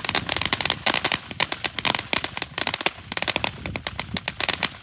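A string of firecrackers going off in a rapid, irregular run of sharp cracks, many per second.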